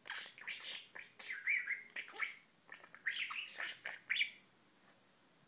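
Budgerigar chattering: a quick run of short chirps, squawky notes and warbles that stops about four seconds in.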